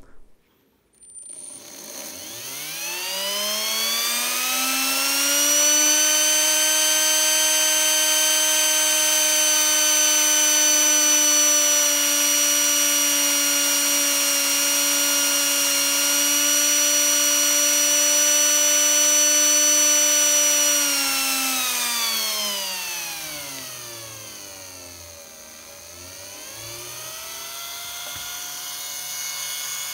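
3D-printed three-phase permanent-magnet electric jet motor spinning up with a rising whine, holding a steady high-pitched whine at speed for about fifteen seconds, then winding down. Near the end it is revved up again to a lower, quieter whine.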